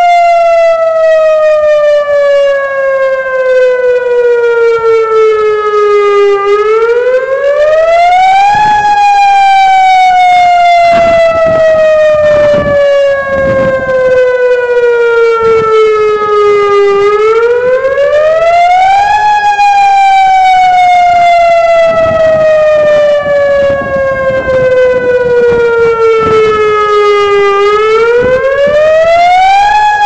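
Outdoor emergency warning siren sounding a loud, slow wail in a monthly system test. The pitch falls slowly for about eight seconds and then sweeps back up in about two, a cycle heard three times.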